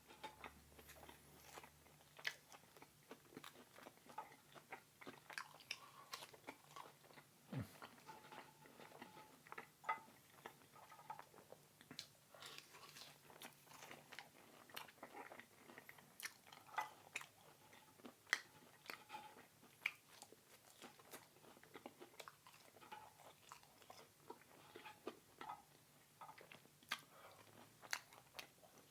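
A person chewing food close to the microphone: scattered soft, wet mouth clicks and smacks of eating.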